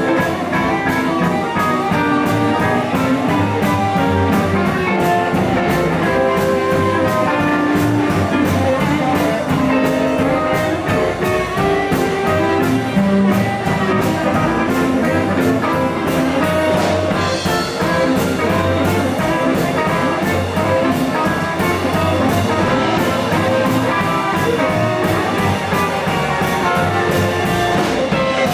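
Live blues band playing an instrumental passage with no singing: electric guitar, acoustic guitar and a drum kit keeping a steady beat, with a harmonica played into a microphone.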